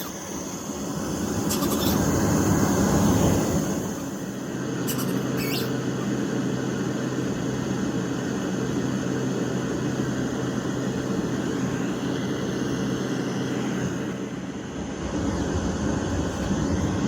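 Ambient sleep soundscape playing from the DREAMIE sleep device's speaker: a steady rushing noise bed that swells into a low rumble about two to three seconds in, with a faint low hum through the middle.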